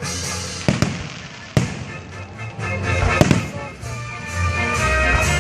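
Fireworks exploding overhead: three sharp bangs with crackling and rumble between them, while music plays along with the show and grows stronger in the second half.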